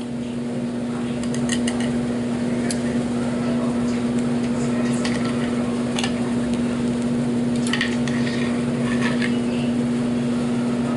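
Knife and fork cutting and scraping on a plate, with scattered light clicks of cutlery, over a steady electrical hum from a kitchen appliance.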